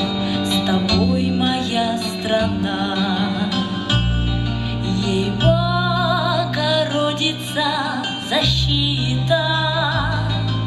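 A song: a woman singing held notes with vibrato over an accompaniment of long sustained bass notes that change every few seconds.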